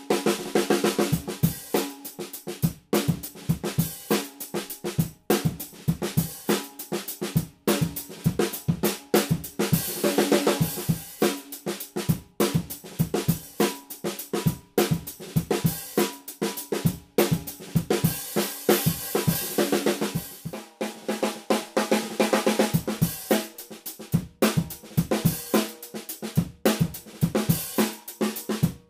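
13 x 6.5-inch steel-shell snare drum played with sticks in short phrases of quick strokes, with brief pauses between phrases. It is at a medium tuning for most of the stretch and at a higher tuning near the end.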